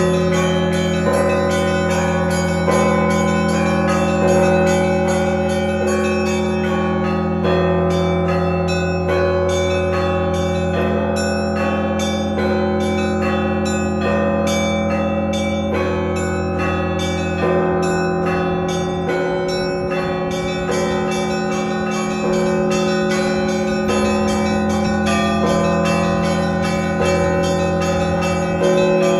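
Russian Orthodox monastery bells rung by a single ringer: small bells struck in a quick rhythmic pattern over larger bells that are struck every second or two and ring on. A deep bell hum sounds underneath and changes about two-thirds of the way in.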